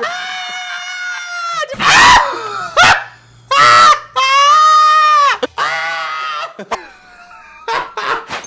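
A person's voice making loud, drawn-out bird-like squawks and screeches, several in a row, with short harsh bursts between them; they trail off near the end.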